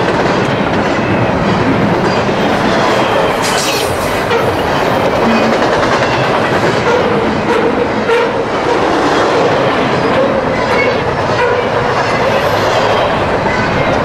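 Double-stack intermodal container train passing: the steady, loud rumble of its steel wheels rolling over the rails.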